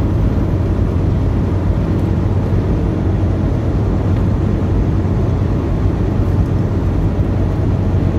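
Cab noise of a Volvo VNL860 semi truck cruising on the highway: a steady low rumble of the diesel engine and tyres on the road, with no changes in pace.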